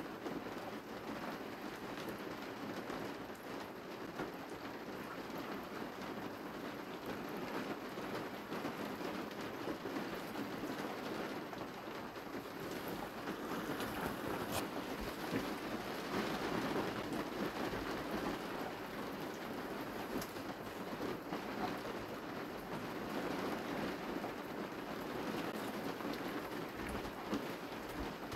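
Steady hiss of rain falling, with a few sharper ticks of single drops.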